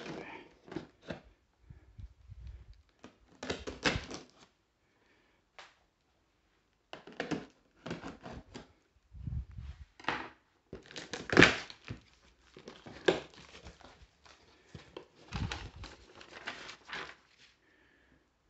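Utility knife cutting through packing tape and cardboard along the seam of a taped-up box, in short bursts of slicing and tape crinkling separated by pauses.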